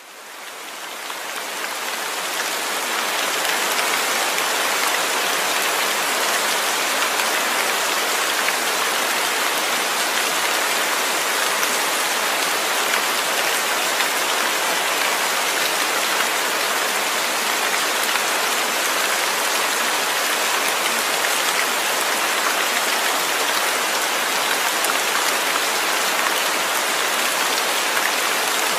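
Steady rain noise, a dense even patter that fades in over the first few seconds and then holds level.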